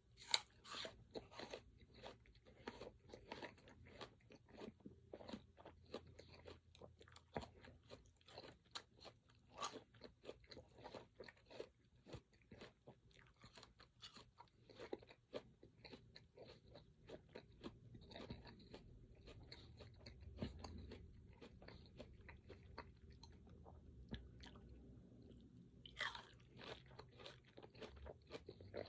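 Close-miked chewing and biting of crunchy food (fruit or pecans), a dense run of small crunches and crackles, thinning out in the second half with one sharp crunch near the end.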